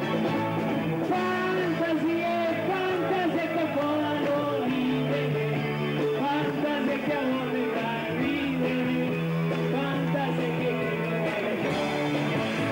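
Live band playing a rock-and-roll song, with a singer's voice over guitar and held bass notes.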